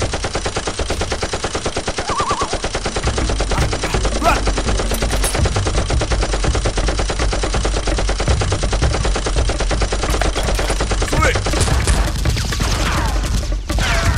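Rapid automatic gunfire sound effect: a fast, unbroken stream of shots.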